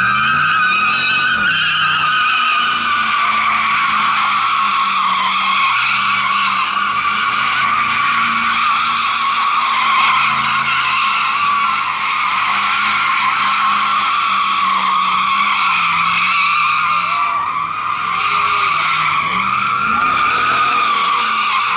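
Tires screeching without a break as a vehicle spins donuts, the engine held at high revs under the squeal. Both ease off briefly around two-thirds of the way in.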